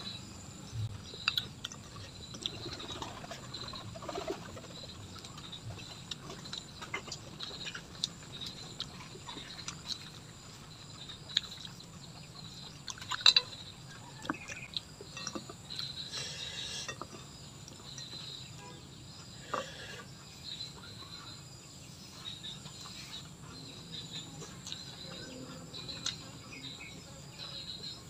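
Close-up eating sounds of a person eating smashed fried pigeon with her fingers: scattered wet smacks and clicks from chewing, sucking her fingers and pulling meat off the bones, the loudest about halfway through. Faint chirping and a low steady hum sit underneath.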